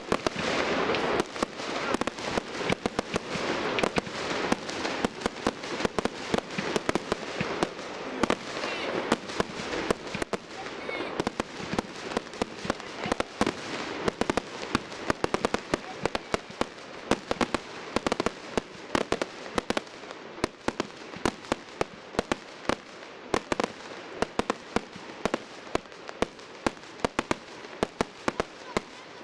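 Aerial fireworks display: rapid bangs, several a second, over a continuous crackling hiss, densest and loudest in the first half and thinning toward the end.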